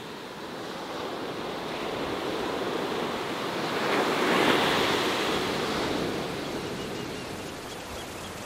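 Ocean waves breaking on a sand beach: the surf noise swells to a loud shorebreak crash about halfway through, then eases off into washing foam.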